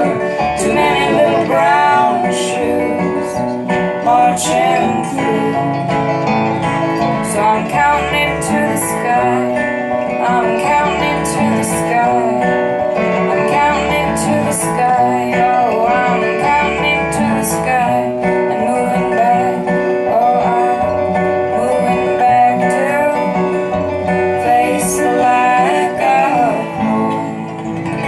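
Live folk song played on acoustic guitar, plucked and strummed, with a voice singing over it.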